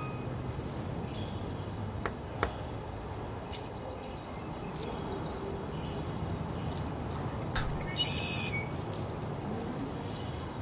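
Quiet outdoor background ambience: a steady low rumble, with a few short bird chirps and a couple of faint clicks.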